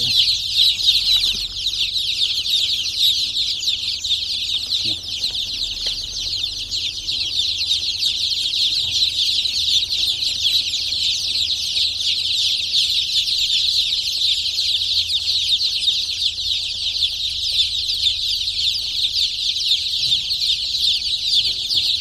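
A brooding house full of young native village chicks peeping continuously, hundreds of high chirps overlapping into a steady, dense chorus.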